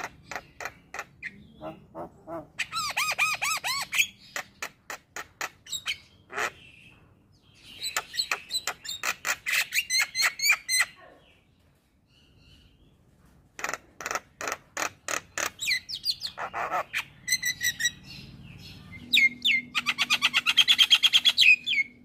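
Male Javan myna (jalak kebo) singing: series of short, sharp repeated notes, several a second, broken by brief pauses, rising into a loud, fast chatter about three seconds in and again near the end.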